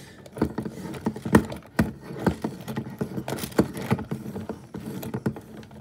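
Plastic Jurassic World Mega Destroyers Stegosaurus toy being walked across a tabletop, its feet knocking on the hard surface in irregular knocks about two a second.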